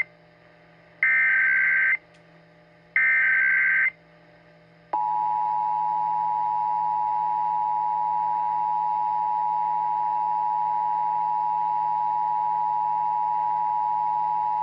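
Emergency Alert System tones: two one-second bursts of SAME header data tones, about two seconds apart, then about five seconds in the two-tone EAS attention signal starts and holds steady.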